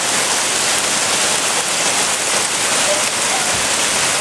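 Heavy rainstorm pouring down in a steady, even hiss.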